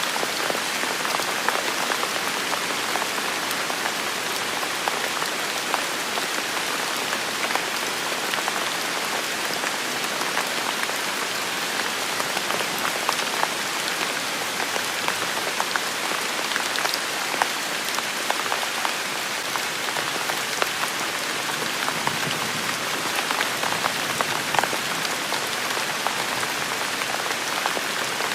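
Steady rain falling on hard surfaces: an even hiss dotted with many sharp ticks of single drops.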